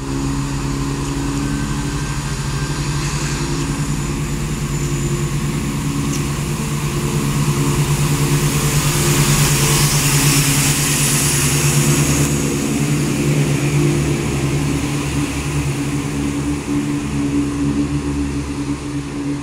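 Class 170 Turbostar diesel multiple unit pulling away from the platform, its underfloor diesel engines running steadily under power. Loudest about halfway through as the carriages pass close by, with added hiss from the wheels on the rails.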